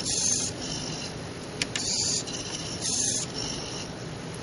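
Servo motors of a small desktop robot arm whirring in three short bursts as the arm steps from one preset position to the next, with a single sharp click in between.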